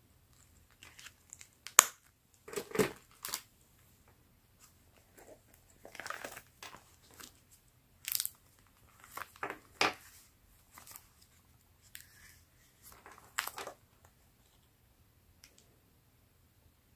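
Close handling sounds of paper journals: the clear plastic cover of a mini three-ring binder and a leather notebook cover rustling and crinkling, and pages being turned. Irregular short rustles are mixed with a few sharp clicks and taps, the loudest near the start.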